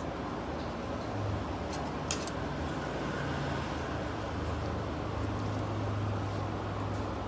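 Steady background noise with a low hum, like a fan or machine running, and two sharp clicks about two seconds in.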